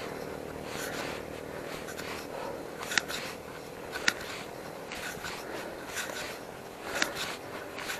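Steady bicycle riding noise on the road, with three sharp clicks about three, four and seven seconds in.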